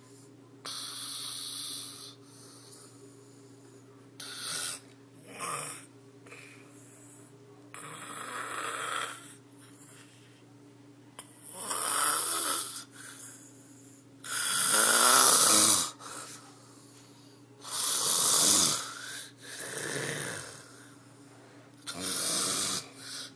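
A sleeping man snoring loudly: about nine snores of uneven length, spread over some twenty seconds, the longest and loudest about two thirds of the way through. Several snores end with a pitch that sweeps downward.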